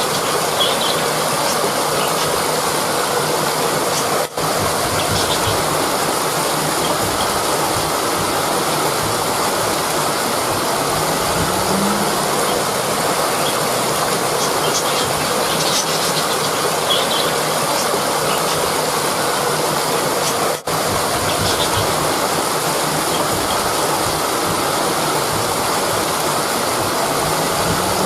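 Steady rushing of river water flowing over rocks, an even wash of noise. It drops out for an instant twice.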